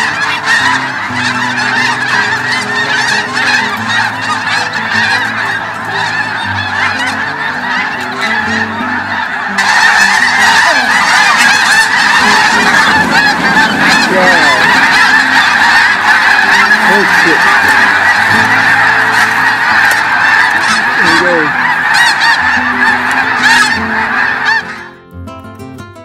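A huge flock of snow geese in flight, calling all together in a dense, unbroken din of honking. It gets louder about ten seconds in and stops shortly before the end.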